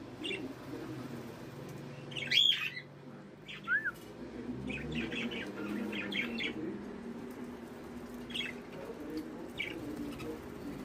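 Budgerigars chirping in scattered short calls, with one louder call about two and a half seconds in and a short rising-and-falling whistle soon after.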